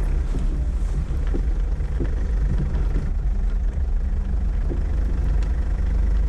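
A car's engine and road rumble heard inside the cabin, a steady low drone.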